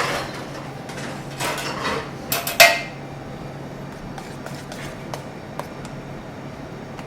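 Kitchen dishes and metal utensils clinking and clattering as they are handled and set down, loudest about two and a half seconds in, then a few light clicks. A steady low hum runs underneath.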